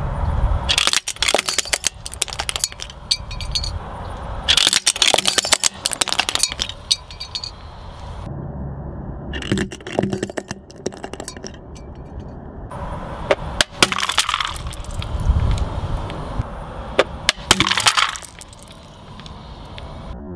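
Hard plastic toy goggles cracking and snapping apart under a car tyre, in several separate bursts of crackling, over the low rumble of the tyre rolling on coarse asphalt.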